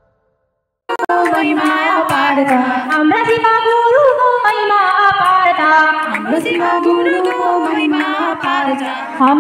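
Women singing together, one voice into a microphone, starting about a second in after a moment of silence.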